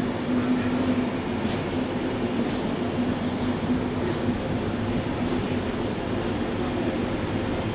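ÖBB Railjet passenger train rolling slowly past along the platform: a steady rumble with a low hum and a few faint clicks from the wheels.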